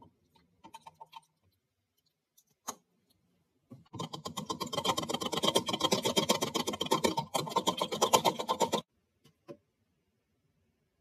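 Eggs being beaten by hand in a plastic measuring jug: a rapid, even clatter of the utensil against the jug for about five seconds, starting about four seconds in and stopping abruptly. A few light clicks come before it.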